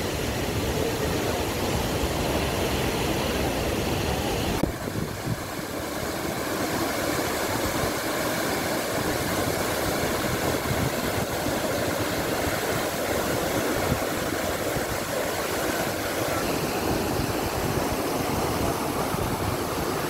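Steady roar of Athirappilly Falls, a large waterfall close by, with a brief drop in level about four and a half seconds in.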